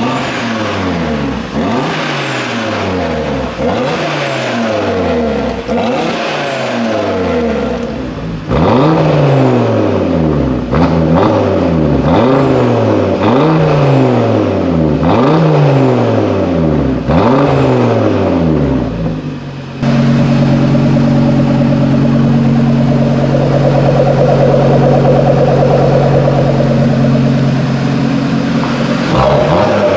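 Cupra Formentor VZ5's turbocharged five-cylinder engine revved through its exhaust with the car standing, in quick blips about every two seconds that fall back between them, louder from about eight seconds in. From about twenty seconds in it is held at steady high revs for about nine seconds, then drops back.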